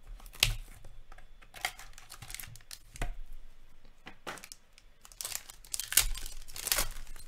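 Hockey card pack wrapper being torn open and crinkled by hand: scattered sharp ticks and short rips, with a denser stretch of crinkling about five to seven seconds in.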